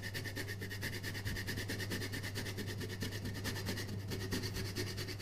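Hard cheese being shaved on a long rasp grater: a fairly faint, rhythmic scraping, over a steady low hum.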